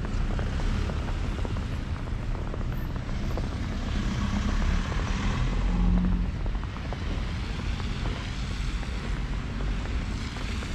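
City street traffic: a motor vehicle's engine running close by, swelling to its loudest about halfway through, over a steady traffic rumble.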